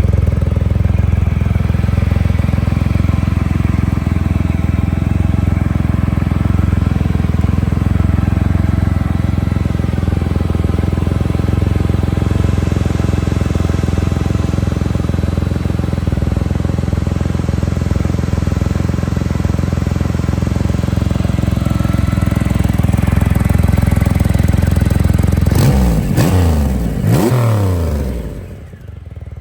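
Triumph Rocket III motorcycle's inline three-cylinder engine idling steadily, then given a few quick throttle blips near the end that rise and fall in pitch.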